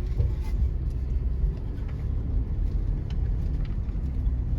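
Toyota 4Runner crawling over a rough trail, heard from inside the cabin: a steady low rumble with scattered light knocks and clicks from the body and suspension.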